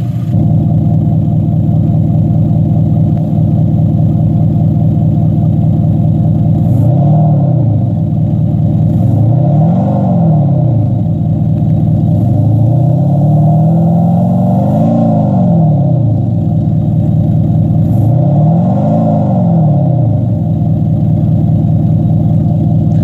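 VW Golf 7 GTD diesel with an aftermarket active sound booster in its loudest mode: the exhaust sound actuator plays a constant artificial burbling engine note at maximum volume. The engine is revved four times, the pitch rising and falling each time, the third rev held longer.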